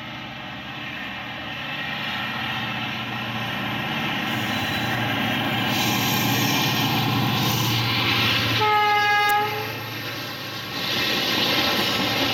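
WDG-4 diesel-electric locomotive, with its 16-cylinder EMD 710 two-stroke engine, approaching with its engine note building steadily, then sounding one short horn blast about nine seconds in. After it, the rumble and rail noise of passenger coaches rolling past.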